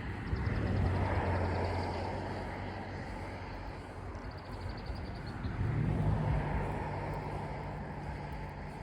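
Two vehicles passing on the road, one after the other. Each is a swell of tyre and engine noise with a low hum, the first loudest about a second in and the second around six seconds in.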